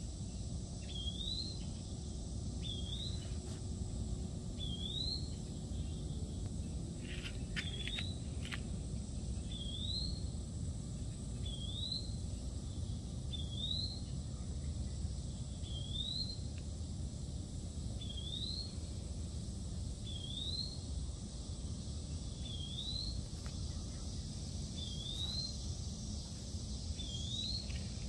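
A bird repeating a short, rising chirp about every two seconds, over a steady low rumble of outdoor background noise.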